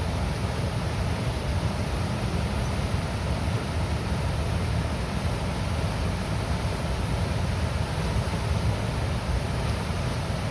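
Water released from a river dam rushing and gurgling through the gates. It is a deep, steady rush that does not change.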